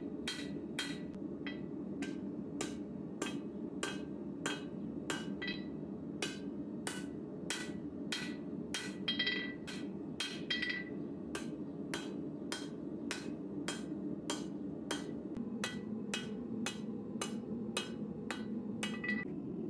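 Hand hammer striking red-hot knife steel on an anvil, shaping the blade's tip: about two blows a second, each with a short metallic ring. A steady low hum runs underneath.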